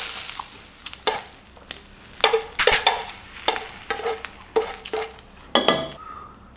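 Beef rib-finger meat sizzling in a nonstick frying pan, the sizzle fading within the first second, while tongs tap and scrape against the pan a dozen or so times as the small pieces are picked up and turned.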